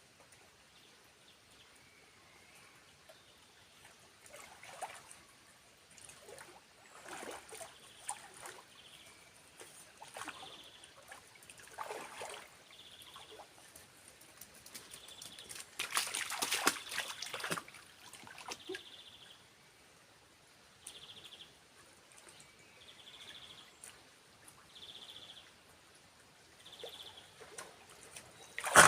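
Water splashing and trickling in irregular bursts, the biggest splash about two-thirds of the way through, with a short high chirp repeating every second or two through the second half.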